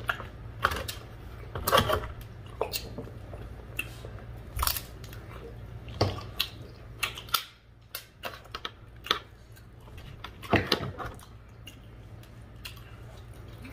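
Crab shell being cracked and eaten: irregular sharp cracks and crunches of shell, a dozen or so spread out, with chewing between them.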